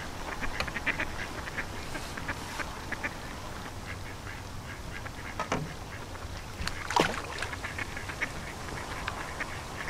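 Ducks quacking in scattered short calls, a quick run of them in the first few seconds and a couple of louder ones later.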